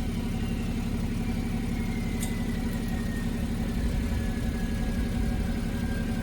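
BMW X5 35d's twin-turbo 3.0-litre straight-six diesel idling steadily through a stock muffler, with its catalytic converter and DPF deleted. A thin turbo whistle winds slowly down in pitch over the idle.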